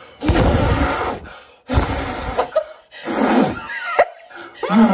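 Two people blowing hard through pursed lips: three long gusts of breath, the first about a second long, then laughter near the end.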